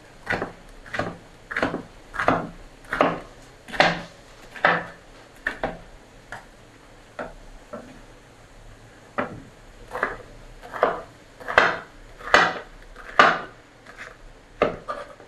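Kitchen knife slicing bitter melon on a wooden cutting board: steady chops about one and a half a second, each blade knocking through to the board, with a pause of about three seconds midway before the chopping resumes.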